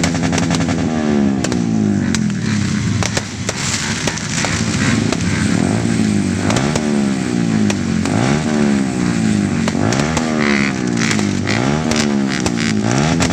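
Motorcycle engines revving repeatedly, the pitch climbing and dropping back every second or two, with several engines overlapping. Scattered sharp cracks sound over them.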